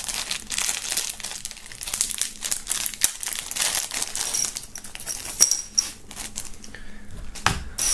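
Clear plastic packaging bag crinkling and rustling in the hands as it is opened and pulled off a ball-chain dog tag necklace.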